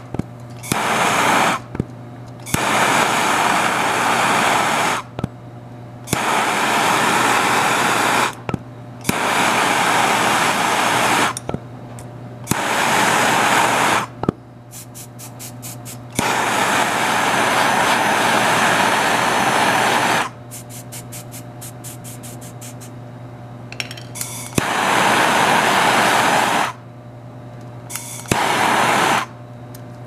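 Propylene hand torch flame hissing in repeated bursts of one to four seconds that cut off abruptly in between, as it heats a steel oil plug on a fridge compressor shell for soldering. A steady low hum runs underneath.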